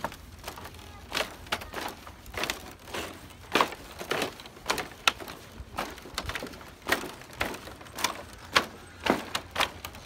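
Footsteps on a rickety woven bamboo footbridge: each step a short knock of the split-bamboo slats, about two a second.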